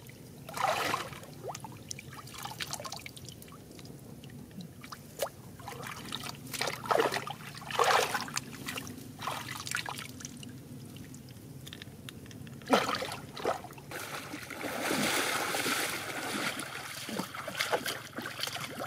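Shallow water splashing and trickling as hands grope along the bottom and lift out snails, in irregular short splashes with a longer spell of sloshing about two-thirds of the way through.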